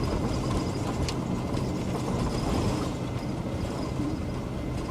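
Vehicle driving along a road: steady engine and road rumble with a few light clicks and rattles.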